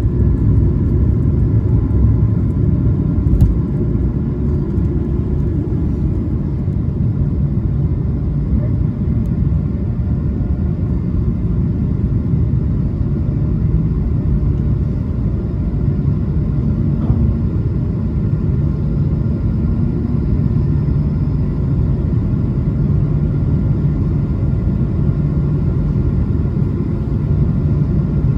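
Cabin noise of an Airbus A220-300 climbing after takeoff: its Pratt & Whitney PW1500G geared turbofans and the airflow over the fuselage make a loud, steady low rumble with a few faint steady whining tones above it.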